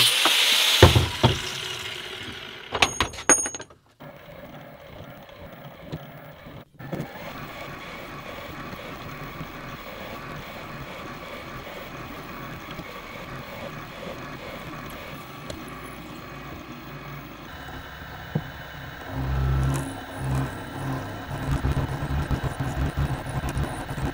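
An angle grinder with a cutoff disc cutting a metal bar, dying away within the first couple of seconds, followed by a few sharp metallic clicks. Then a milling machine spindle runs steadily while drilling and end-milling a metal block. The cutting grows louder and uneven in the last few seconds.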